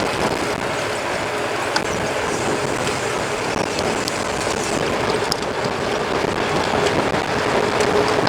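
Mountain bike riding noise: a steady rush of tyres rolling and moving air, with a few scattered sharp clicks and rattles from the bike.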